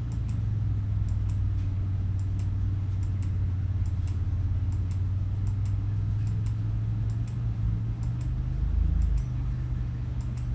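Steady low hum with faint, irregular clicking of computer keys, several clicks a second at times, as the pictures are paged through.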